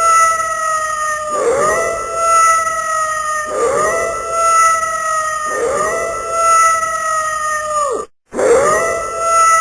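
Wolf howling, the same long howl repeated about every two seconds: each one swoops up quickly, holds a nearly level, slightly falling tone, then drops away at the end. The sound cuts out briefly about eight seconds in before the next howl.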